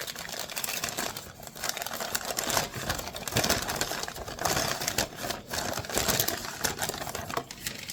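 A mail package being opened by hand: packaging rustling and crinkling, with many small clicks and taps throughout.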